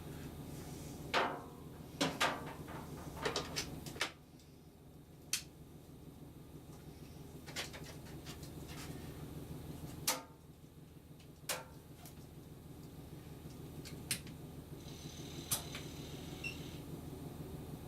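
Sharp clicks and knocks of a new lathe's levers, handles and fittings being worked by hand, over a steady low hum.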